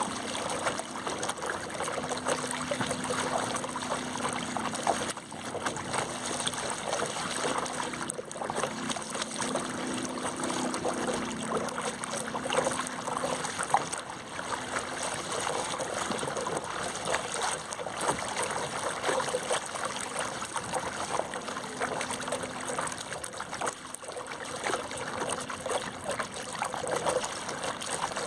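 Water splashing and trickling against a small camera sled riding along the surface: a continuous run of small, close splashes with no break.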